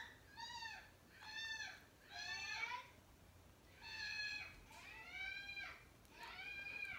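Six faint, high-pitched cries, each rising then falling in pitch and lasting about half a second, repeated roughly once a second with a short pause halfway.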